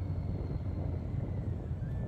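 Harley-Davidson V-twin motorcycle engine running steadily at road speed, with wind rushing over the microphone.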